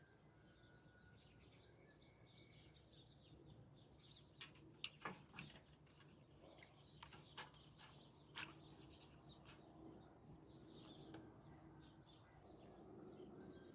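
Faint background birdsong, scattered small chirps, with a few soft sharp clicks about four to eight and a half seconds in.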